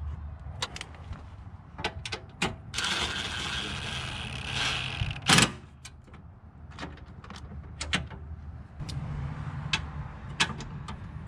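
Hand tools working bolts in a car's engine bay: scattered clicks and metal clinks, a stretch of continuous rattling from about three to five seconds in, and a sharp clank just after it. The bolts are being snugged down.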